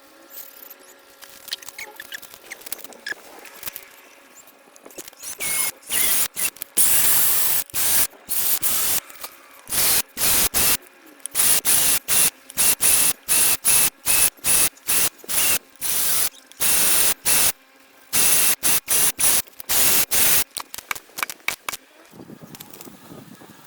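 Many short, loud bursts of hissing, fast and irregular, starting about five seconds in and stopping about twenty seconds in.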